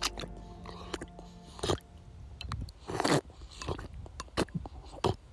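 A person slurping water straight from a shallow puddle with the mouth: a string of short, irregular wet sucking and sipping noises, the loudest about a second and a half in and around three seconds in.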